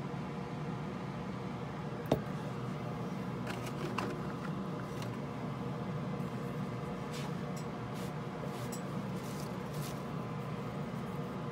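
Cotton swabs wet with isopropyl alcohol rubbing flux residue off a soldered chip on a circuit board: faint, scattered scratchy strokes over a steady background hum, with one sharp click about two seconds in.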